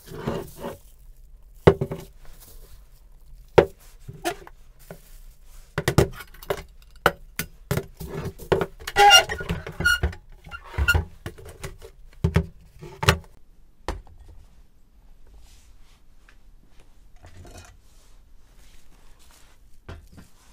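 Glass jars and an electric hot plate handled and set down on a wooden tabletop: a run of sharp knocks and clinks, busiest around the middle with some brief ringing. The knocks stop about two-thirds of the way in.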